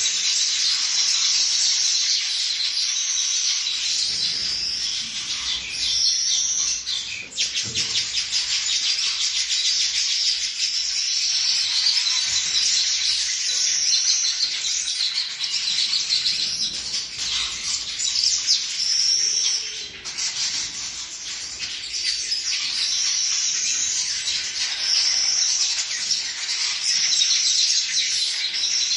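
Weaver birds chattering, a dense continuous mass of high chirps, with buzzy whistled phrases repeating every few seconds over the top.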